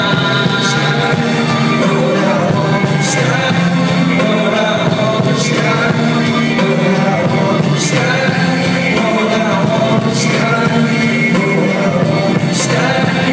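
Live band music with singing, loud and steady, with a bright cymbal-like hit about every two and a half seconds.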